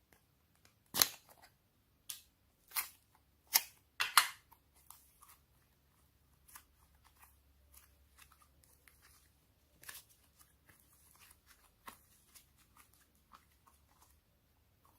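Slime being mixed and worked by hand: a few sharp crackles and snaps in the first few seconds, then softer ticking and small squishy crackles.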